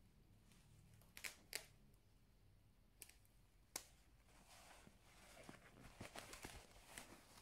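Quiet packing handling sounds: a few sharp light clicks in the first four seconds, then soft fabric rustling from about halfway as a hair dryer in a white cloth pouch is moved over the clothes.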